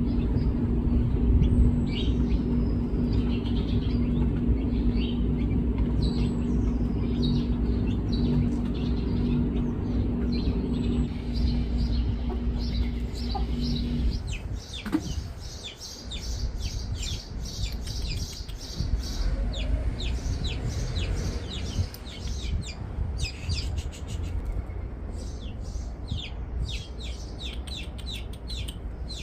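Small birds chirping rapidly and repeatedly over a steady low mechanical hum, which stops abruptly about halfway through.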